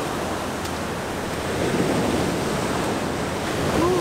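Ocean surf washing up the sandy beach and breaking on rocks: a steady rush of noise that swells about a second and a half in. A short vocal call begins right at the end.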